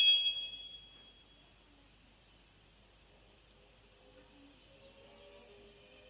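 A bright chime rings at the start and fades within about a second and a half. Faint, high chirping twinkles follow, and soft sustained ambient music notes come in near the end.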